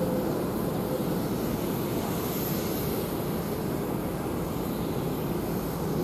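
Boeing 747-8F freighter's four GEnx turbofans climbing away after takeoff: a steady, low jet rumble.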